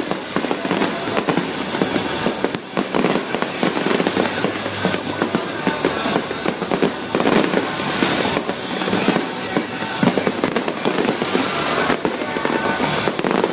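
Fireworks finale barrage: many shells bursting in rapid, unbroken succession, with dense bangs and crackling.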